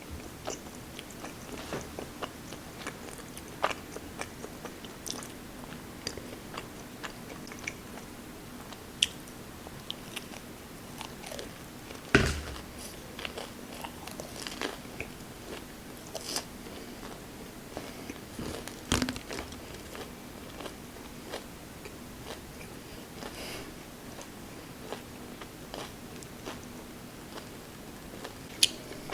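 A person chewing and biting food close to the microphone, with small crunches and scattered clicks; two sharper knocks stand out, about twelve seconds in and again near nineteen seconds.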